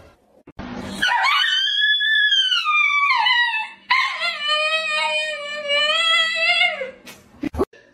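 A husky-type dog howling in two long drawn-out calls. The first rises and then slides down, and the second is held steadier at a lower pitch before dropping off at its end.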